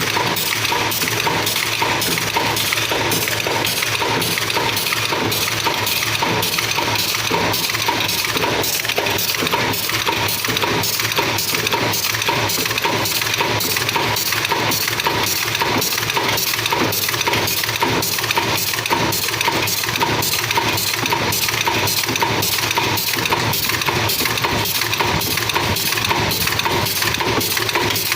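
Staple pin making machine running at a steady pace: a fast, even metallic clatter, several strokes a second, over a constant machine hum.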